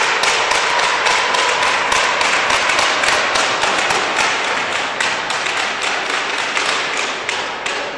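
Spectators applauding a won point in a sports hall: a dense, fast clatter of clapping that starts just before the rally's end is marked and fades slightly near the end.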